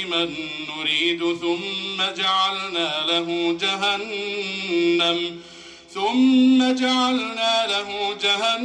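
A man reciting the Quran in slow, melodic tajweed style, drawing out long wavering notes. He breaks off briefly for breath about five and a half seconds in, then resumes on a rising, held note.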